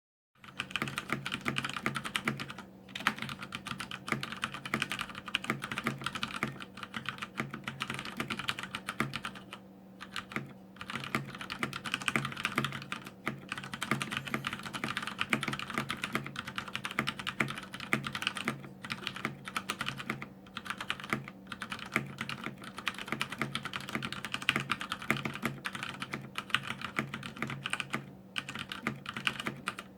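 Fast typing on a CODE mechanical keyboard with Cherry MX Brown tactile switches: a rapid, continuous clatter of key presses, broken by a few short pauses. A steady low hum runs underneath.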